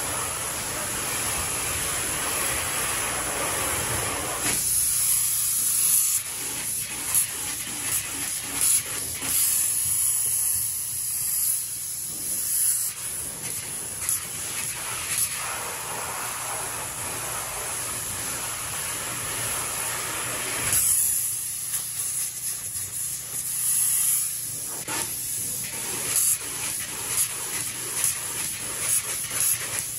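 Spray foam gun hissing as it sprays polyurethane foam insulation. The spray is steady, fuller and heavier for the first few seconds and again about two thirds of the way through, lighter and higher in between.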